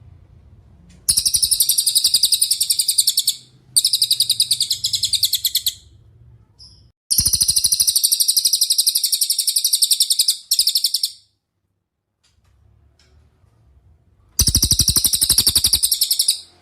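Cililin bird singing: four bouts of rapid, evenly repeated high, shrill trilled notes, each bout two to three seconds long, with short pauses between them.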